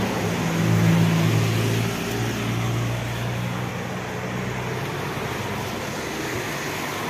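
Engine hum of a passing road vehicle, loudest in the first couple of seconds and fading away by about five seconds in, over a steady outdoor rush of traffic noise.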